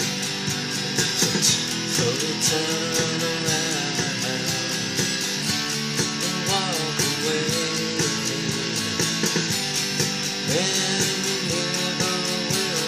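Electric guitar strummed in a steady rhythm, its chords ringing on. A wavering melody line that bends in pitch comes in about two seconds in, again around the middle, and near the end.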